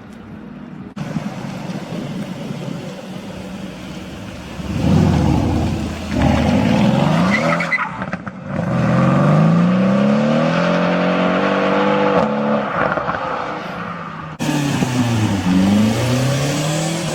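Modified car engines revving and accelerating hard as cars pull away, the pitch climbing and dropping again and again with throttle and gear changes. The sound changes abruptly about a second in and again near the end, where another car revs.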